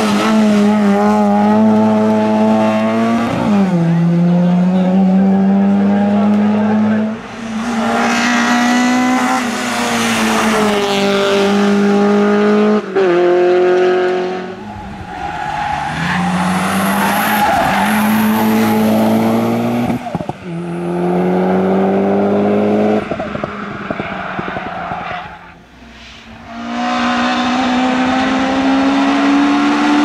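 Several hillclimb race cars driven flat out one after another, among them a classic Mini and a Mitsubishi Lancer Evolution. Each engine's pitch climbs and then drops at each upshift, and the sound fades briefly between one car and the next.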